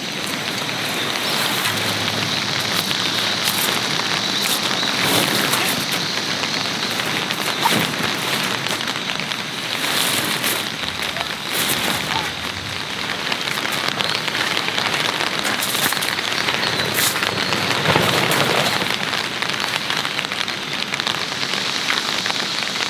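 Nylon fabric of a Nidogen Octagon Max pop-up hub tent rustling and flapping as it is unfolded and pushed into shape, with sharp crinkles every few seconds over a steady hiss.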